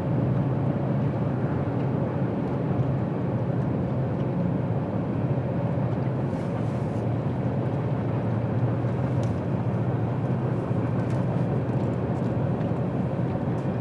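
A steady engine drone with a constant low hum that does not change.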